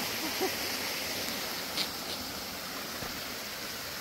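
Woodland stream running over small cascades, a steady even rush of water, with a short faint click about two seconds in.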